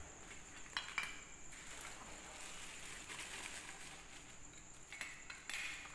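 Faint handling noise as black cylindrical pendant lamp housings are picked up and moved against each other, with a few light clicks about a second in and near the end.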